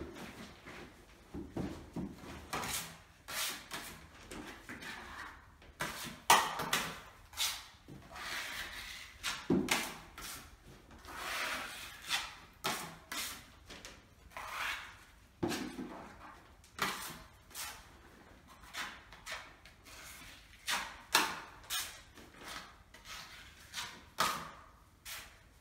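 Putty knife spreading and scraping wall filler over painted wall panelling in repeated irregular strokes, with a few low knocks among them.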